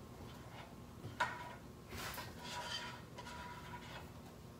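Faint kitchen handling sounds: a few light knocks and scrapes of bowls and utensils, about a second apart.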